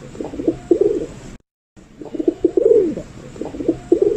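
Pigeon cooing: a gentle run of low coos with a falling note. It stops briefly about a second and a half in, then the same cooing starts again.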